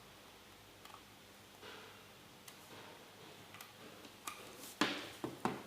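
Small plastic clicks and handling noises as a sensor and charging cable is plugged into the port of a phone anti-theft alarm box, with a few sharper, louder clicks near the end.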